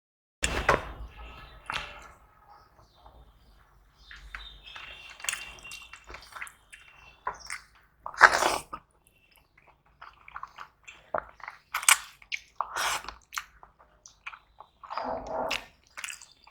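A person chewing and eating food at close range: irregular short wet smacks and clicks, the loudest about eight seconds in.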